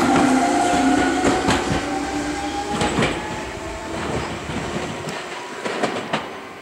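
Meitetsu 1800-series electric train accelerating away from the platform: a motor whine that rises slowly in pitch, with paired clacks of the wheels over rail joints. It fades as the train draws off.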